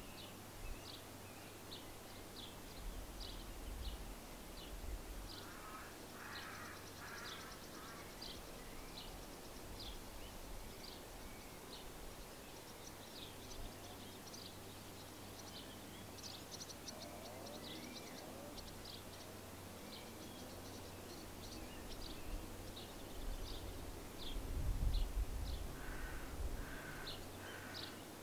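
Outdoor spring birdsong: a small bird's short high chirps repeating about once a second, with a few lower, harsher bird calls around six seconds in and again near the end. A low rumble about 25 seconds in is the loudest moment.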